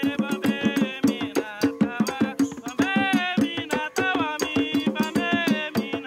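Atabaque hand drums struck with bare hands in a quick, steady rhythm, with voices singing over the drumming.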